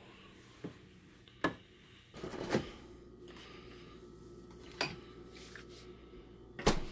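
Refrigerator door being opened and things inside it handled: a few scattered knocks and clicks, a short clatter about two and a half seconds in, and a sharp knock near the end, the loudest of them. A faint steady hum runs underneath once the door is open.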